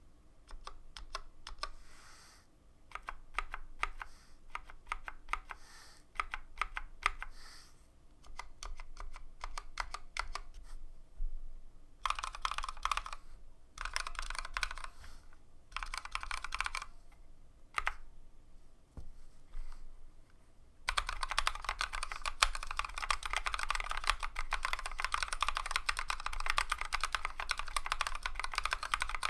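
Typing on a Tokyo60 mechanical keyboard fitted with stock, unlubed Novelkeys x Kailh Cream linear switches and PBT keycaps. Short runs of keystrokes with pauses between them give way, about two-thirds of the way in, to fast, continuous typing.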